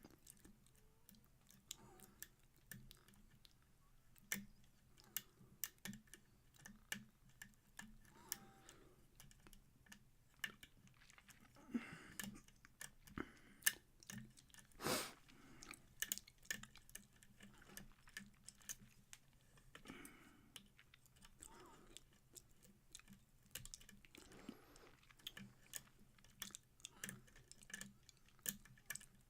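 Faint, irregular clicks and ticks of a lock pick and tension wrench working the pins of a Kwikset pin-tumbler lock, with no steady rhythm and a few louder snaps among them.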